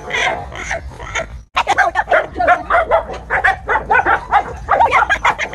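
Dogs barking in quick succession, several short barks a second, with a sudden break about a second and a half in before the barking resumes.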